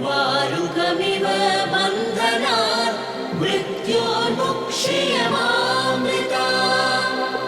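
Music with wordless chanted or choir-like singing over sustained chords, the voices gliding and bending in pitch.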